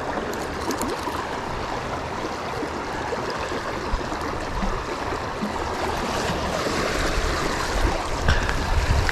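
Steady rush of a fast-flowing, flooded river.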